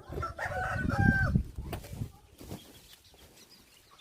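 A chicken gives one drawn-out call, about a second long, near the start, followed by a couple of light knocks.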